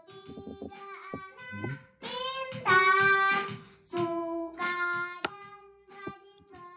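Someone singing in long held notes in the background, loudest about three seconds in, with a few sharp clicks.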